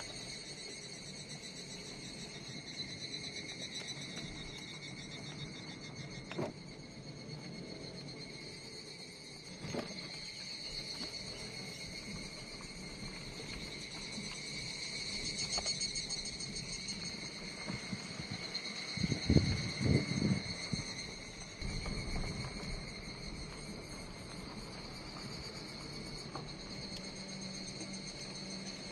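A steady chorus of insects trilling, high-pitched and pulsing, swelling a little now and then. About two-thirds of the way in comes a short burst of low rumbling thumps.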